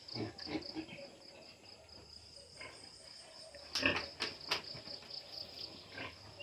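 Piglets grunting softly as they nose at a plastic gallon bottle hung as a toy, with three sharp knocks close together about four seconds in as the bottle is bumped. A steady high insect chirring runs behind.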